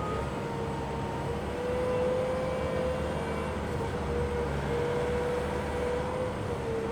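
Bobcat T740 track loader's diesel engine running steadily, with a steady whine that wavers slightly in pitch over it.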